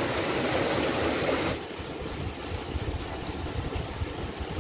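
Water gushing from a tubewell's outlet pipe and splashing into a concrete tank, a steady rush. It cuts off abruptly about one and a half seconds in, leaving a quieter, unsteady low rumble.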